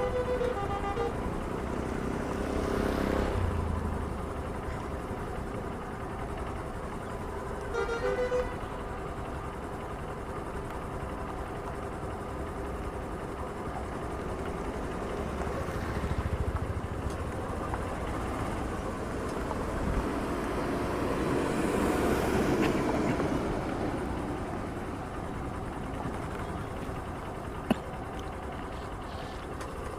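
Road traffic passing one vehicle after another, each swelling and fading, with two short horn toots: one at the start and one about eight seconds in.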